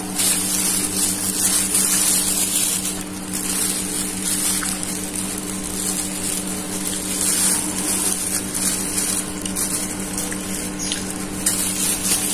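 A steady two-tone hum with hiss, under chewing and the rustle of a plastic food bag being handled.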